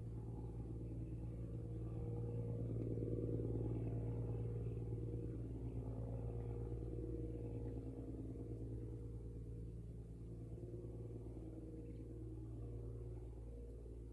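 Diesel engine of a squid-fishing boat running under way at a distance: a steady low drone that swells about three seconds in and then slowly fades.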